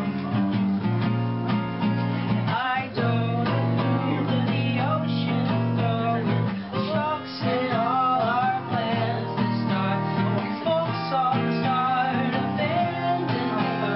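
Acoustic guitar strummed in sustained chords, played live. In the second half a voice sings a wavering melody over it.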